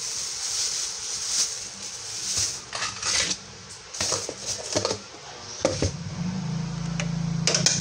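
Flour poured into a bowl with a soft hiss, followed by several light taps and knocks as the bowl and packet are handled. A low steady hum comes in about two-thirds of the way through.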